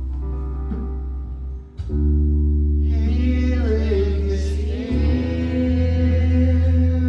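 Gospel worship music: singing over sustained chords and a deep bass, with guitar.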